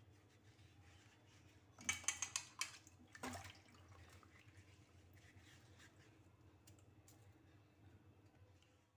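Hands swishing and rubbing peeled raw plantains in water in a steel bowl: a short spell of splashing and sloshing about two seconds in, then quieter handling with faint drips.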